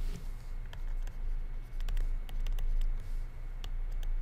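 Stylus tapping and scratching on a tablet screen while handwriting, a scattered series of short sharp ticks over a steady low hum.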